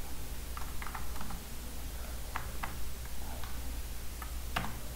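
Computer keyboard keys tapped in an irregular run of about ten keystrokes as a short command is typed, the last one near the end the sharpest. A low steady hum lies beneath.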